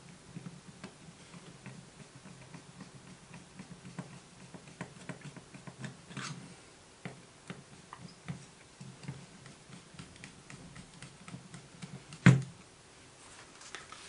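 Small clicks, taps and rustles of hands and a screwdriver working on a 3D-printed plastic model loco chassis and its wiring, with one sharp, louder knock about twelve seconds in.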